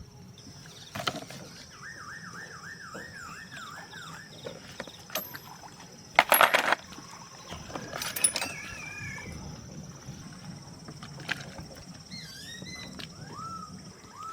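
Scattered sharp knocks and clinks, the loudest a short clatter about six seconds in, over a steady high insect drone. A bird gives a repeated warbling whistle early on, and short chirping calls come near the end.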